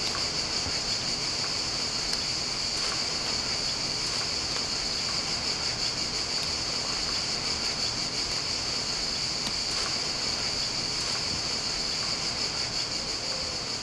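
A steady chorus of insects in the summer heat, a continuous high-pitched drone that neither stops nor changes.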